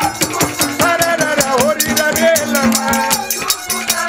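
Instrumental interlude of Haryanvi ragni folk accompaniment: a bending melody line over a steady drone, driven by fast, evenly paced rattling percussion.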